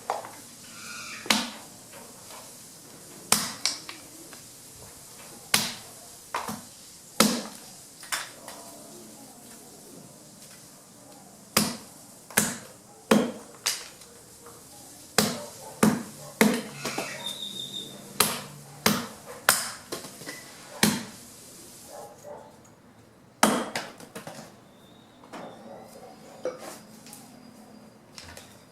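Repeated chopping blows on fallen branches, cutting them by hand into wood chips: sharp, separate strikes, mostly one every half second to a second, with a short pause about a third of the way through and fewer blows near the end.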